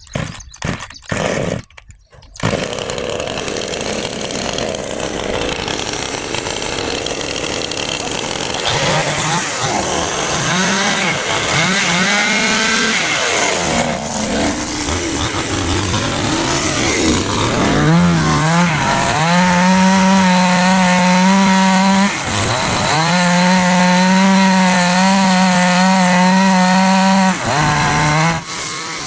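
Chainsaw cutting a tree. It gives a few short bursts, then runs continuously with a wavering pitch as it works through the wood. In the last third it holds a steady high whine, dipping briefly twice.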